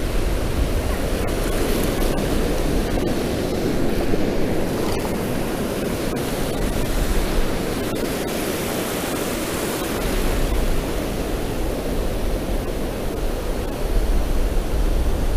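Ocean surf washing steadily onto a sandy beach, with wind rumbling on the microphone at times, most near the start and in the last few seconds.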